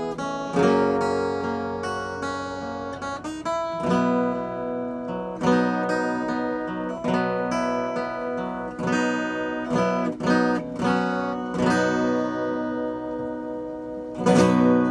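Acoustic guitar playing slow chords alone, each strummed or plucked and left to ring. The loudest chord comes near the end.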